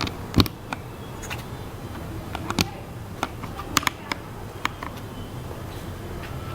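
Keys being typed slowly and unevenly on a Redragon Fizz K617 mechanical keyboard with lubed Akko CS Red linear switches, XDA-profile PBT keycaps and tape and foam mods: separate key strokes at about two a second, the loudest and deepest about half a second in.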